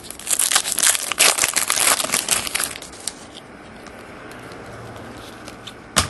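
Wrapper of a Panini Elite basketball card pack being torn open, with dense crinkling and tearing for about the first three seconds. The cards are then handled much more quietly, with one sharp click near the end.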